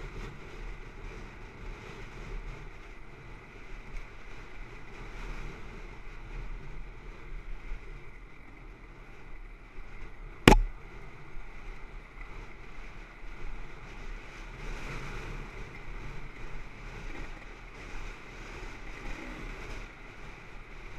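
Dirt bike engine running steadily as it is ridden along a dirt trail. A single sharp knock cuts through about ten and a half seconds in.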